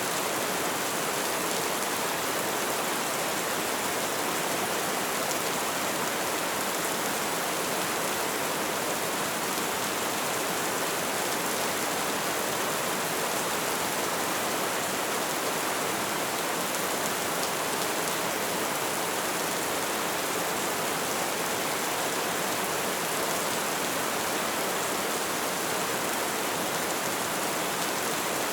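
Light rain falling in a steady, even patter, with no individual drops standing out.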